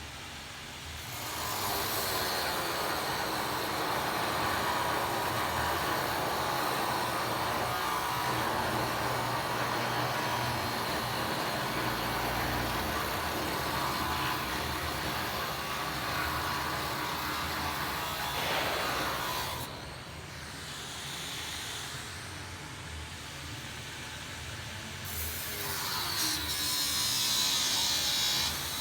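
A power tool running continuously while cutting metal, a steady harsh noise with a faint high whine. It eases off and loses its hiss about two-thirds of the way through, then picks up again near the end.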